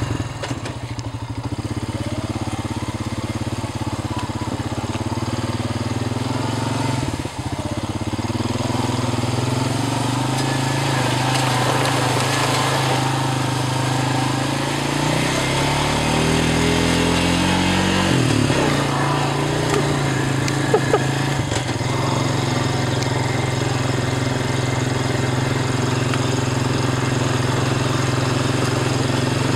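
ATV engine running as the four-wheeler drives over a leaf-covered forest floor. Past the middle the engine climbs in pitch for a couple of seconds, then drops back to a steady run, with a sharp knock or two shortly after.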